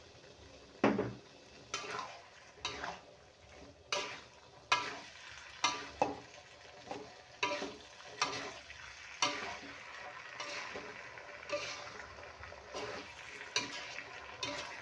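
Metal spatula scraping and tossing shrimp, carrots and green beans in an aluminium wok, about one stroke a second, over a steady sizzle as the stir-fry cooks with its cornstarch-thickened sauce.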